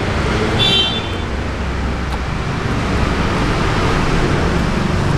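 Steady road traffic noise from passing vehicles, with a low rumble, and a short high-pitched tone under a second in.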